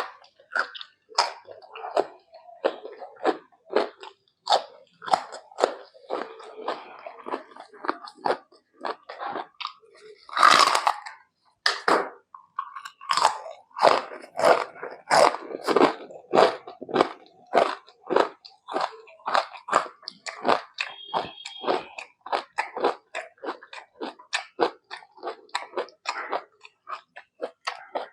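Close-miked chewing and wet mouth smacks from someone eating rice with mutton and egg curry, in quick irregular clicks. One longer, louder noisy sound comes about ten seconds in.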